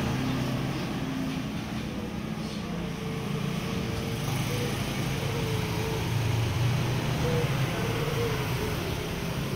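Steady low background rumble, with a faint wavering tone coming and going over it from about halfway through.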